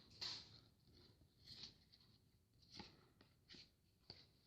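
Near silence with a few faint, short rustles and taps of trading cards and a foil pack being handled.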